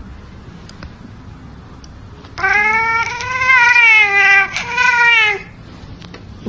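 Orange tabby cat meowing loudly in a long, drawn-out yowl that starts about two and a half seconds in, breaks briefly and carries on for another second, while a black kitten clings to its back.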